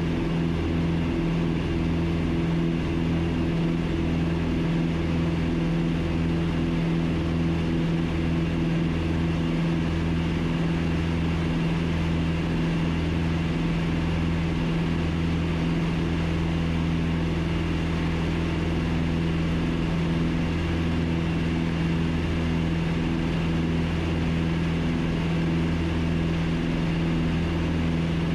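Piper PA-30B Twin Comanche's two Lycoming four-cylinder engines and propellers running steadily at climb power, heard from inside the cabin. A slow throbbing beat between the two engines lengthens and fades into an even drone about halfway through, as the propellers come into sync.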